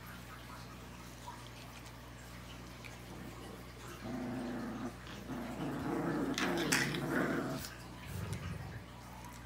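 Rottweiler growling in rough stretches that start about four seconds in, are loudest a little past the middle, and end in a lower rumble.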